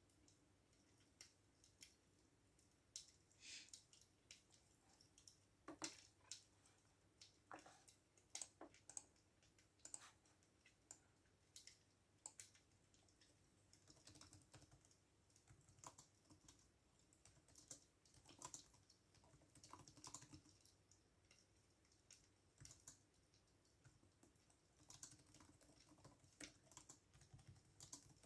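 Quiet computer keyboard typing: irregular runs of soft key clicks with short pauses between them.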